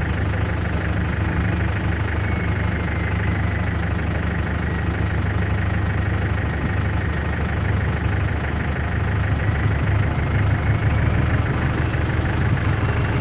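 Land Rover Defender 130's engine idling steadily, heard from inside the cab, getting a little louder in the last few seconds.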